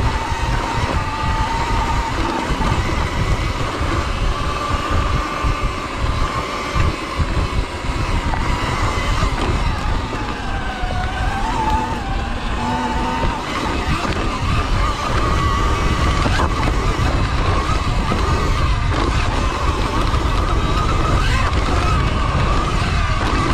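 Sur-Ron X electric dirt bike's motor and drive whining, the pitch dipping about ten seconds in and climbing again as speed changes, over a heavy rumble of wind and tyres on the dirt trail.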